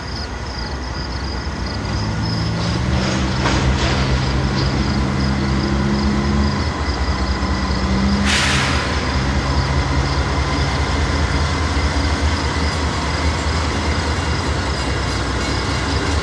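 Diesel locomotive approaching slowly with its engine running in a low drone. About eight seconds in comes a sharp hiss of air from the brakes that fades over about a second.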